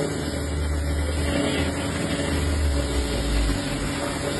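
Pressure washer running: a steady motor hum under the hiss of the water jet spraying the metal rear doors of a box truck. A low rumble underneath fades about three and a half seconds in.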